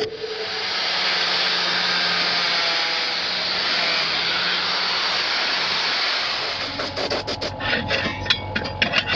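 A handheld power tool sanding a surface, running steadily with a low motor hum for about six and a half seconds, then stopping. A string of short scrapes and clicks follows near the end.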